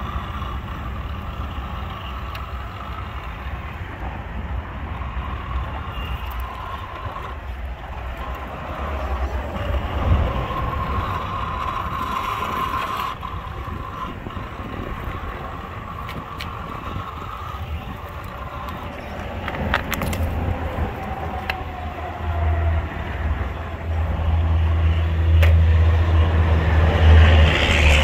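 Electric motor and gearbox of an Axial SCX10 II 1/10-scale RC rock crawler whining as it crawls over rocks, the pitch shifting with the throttle, with occasional clicks and knocks from the rock. A low rumble builds and is loudest in the last few seconds.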